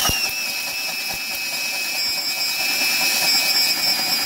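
DeWalt DW131 half-inch drill boring a 2 9/16-inch self-feed bit into a wood block. Its motor whine drops in pitch as the bit bites in at the start, then holds steady under load, with a few low knocks in the first couple of seconds.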